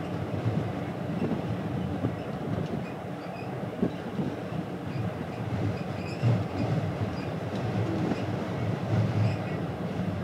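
Steady low rumble of a ferry under way heard from its deck, its engines and hull vibrating, with irregular louder knocks and swells.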